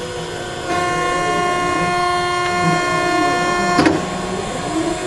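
Hydraulics of a CNC roll bending machine whining steadily as the forming roll is jogged upward. The whine starts under a second in and cuts off with a click nearly four seconds in, over the constant hum of the running hydraulic unit.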